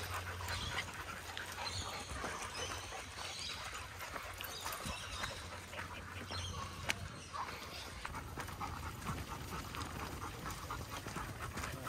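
A pack of dogs panting as they trot along a dirt track, with many faint scattered crunches and ticks of paws and feet on dry leaf litter.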